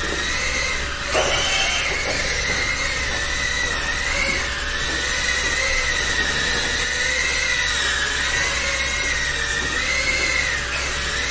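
Small FPV racing drones' motors and propellers whining, a high buzz that wavers up and down in pitch as the throttle changes, over a steady hiss.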